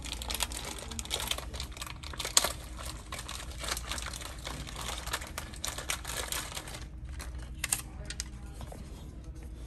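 Clear plastic packaging bag crinkling and rustling as a display part is unwrapped and handled, with a dense run of small crackles and a sharp click about two and a half seconds in. It thins out after about seven seconds.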